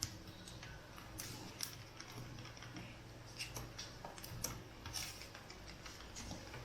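Scattered light clicks and taps of a laptop's metal bottom cover being pushed up and worked free of its middle retaining clips.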